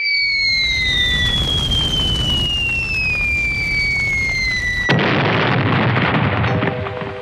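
Cartoon falling-bomb sound effect: a descending whistle over a rushing rumble. About five seconds in, a sudden loud explosion cuts the whistle off.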